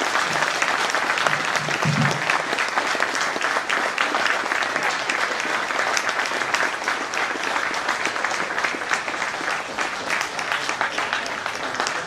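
Audience applauding: dense, steady clapping that thins a little toward the end, where single claps stand out.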